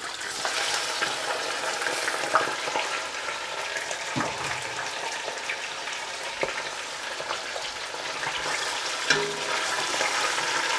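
Raw beef chunks frying in hot oil with browned onions in a steel pot, a steady sizzle, with a wooden spoon stirring and knocking against the pot now and then.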